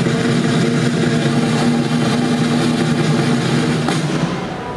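Drum roll played over the PA to build suspense before the grand-prize winner is named. It is steady and unbroken and ends about four seconds in with a single sharp hit that rings on and fades.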